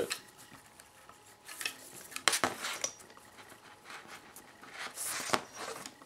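Nylon paracord being handled and threaded by hand: short rustles and light clicks as the cord is passed under the weave and pulled through, about two seconds in and again about five seconds in.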